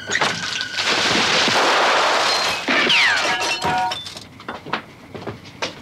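A pistol shot inside a wooden boathouse, the bullet going through a mirror: a sharp crack, then the mirror glass shattering and crashing down for about two seconds, followed by scattered clinks of falling pieces.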